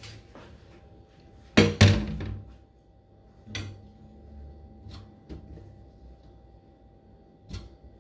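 Kitchen dishes and utensils being handled for washing up: two loud knocks close together about a second and a half in, then scattered lighter clicks and taps.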